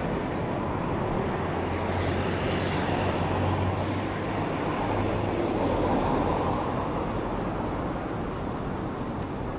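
Street traffic: a motor vehicle running close by, with a steady low engine hum, the noise swelling about six seconds in and then easing off.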